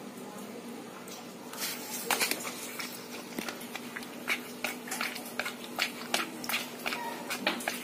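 Wet, sticky clicks and squelches of fingers packing a minced-meat-and-blood filling down through a plastic funnel into a softshell turtle's intestine, irregular, about one or two a second, over a faint steady hum.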